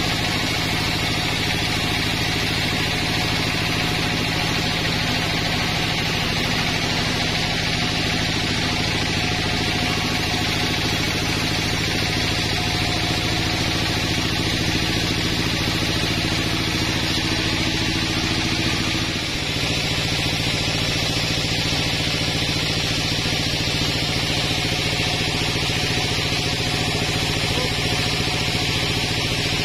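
Band sawmill running steadily while its blade saws lengthwise through a log. About two-thirds of the way in the machine's tone changes abruptly, then runs on steady.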